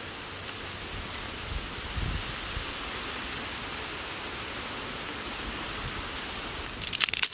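Steady outdoor hiss. Near the end comes a short, loud burst of rapid crackling as dry sticks are handled and pulled from a pile of firewood.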